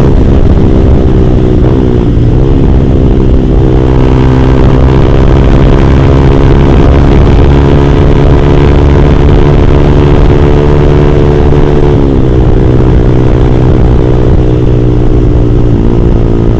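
Yamaha R15 V3's single-cylinder engine running through an R9 GP SS aftermarket exhaust, held at a steady high engine speed under way. The engine note dips briefly in pitch twice, about two seconds in and again about twelve seconds in, then settles back.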